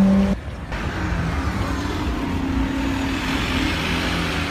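A loud, steady car engine note cuts off abruptly a moment in. Then a Porsche 918 Spyder moves off slowly with a low, steady engine sound over street traffic noise.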